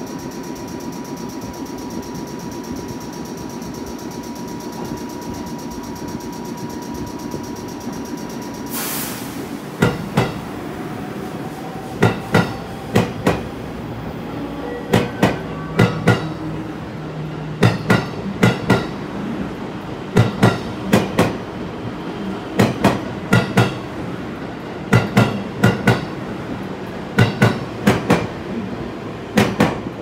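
JR West 223 series 1000-subseries electric train running along the platform, its wheels clacking over the rail joints in pairs, bogie after bogie, every two to three seconds. Before it comes in there is a steady hum with a high tone.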